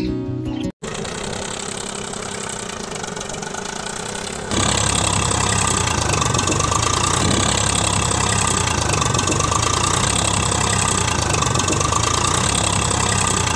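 Tractor engine running steadily, louder from about four and a half seconds in.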